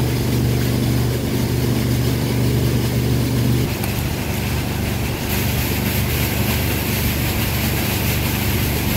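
An engine running steadily. Its note changes about four seconds in, and a hiss rises over it a little after five seconds.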